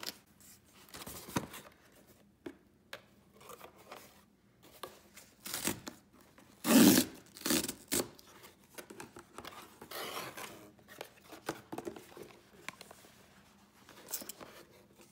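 Packing tape being picked at and peeled off a cardboard shipping box, then the box flaps opened and the paper and boxes inside handled: scattered ripping, scraping and crinkling, with a few louder tears.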